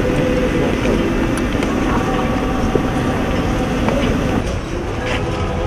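Outdoor crowd ambience: a steady low rumble with murmuring voices and a faint held tone that fades about four and a half seconds in.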